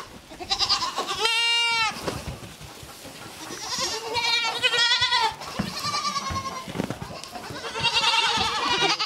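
Goat kids bleating: a series of high bleats, starting with one clear, steady call about a second in, followed by shakier, quavering calls.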